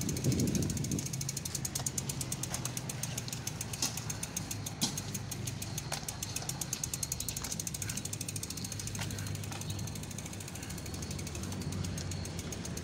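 Bicycle freewheel hub ticking rapidly and steadily as the bike coasts, with a few louder separate clicks and a brief low rumble at the start.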